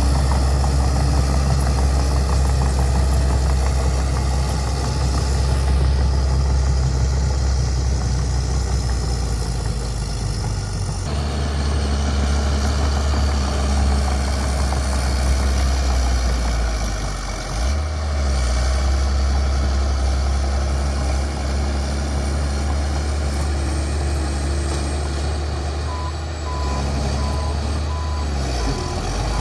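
Bulldozer's diesel engine running with a heavy low drone that changes pitch and load about a third of the way in and again near the middle. A series of even beeps sounds near the end.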